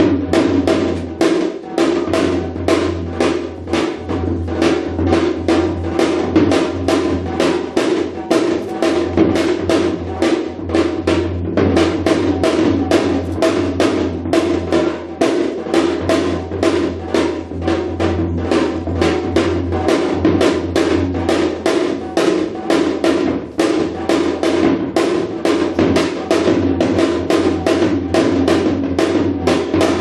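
Korean shamanic janggu (hourglass drum) drumming: a fast, unbroken run of sharp strokes.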